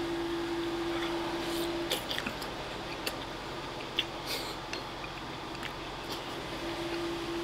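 A person eating udon noodles and kakiage tempura: soft chewing with a few short slurps and small clicks.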